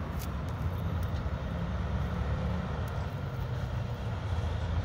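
Road traffic: a steady low rumble of vehicle engines and tyres, with a heavy truck among them.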